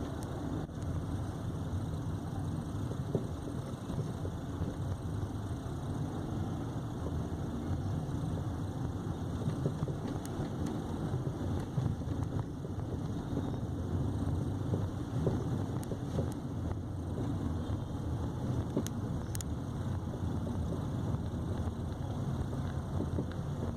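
Steady road rumble from a moving 2015 Nissan Sentra (B17), with a few scattered knocks. The knocks are the metallic clunks from the front right suspension that the owner has heard since the car was new.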